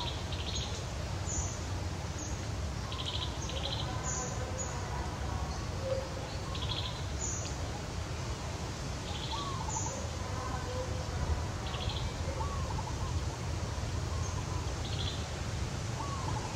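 Outdoor ambience of small birds chirping, short high chirps and brief trills recurring every second or two, over a steady low rumble.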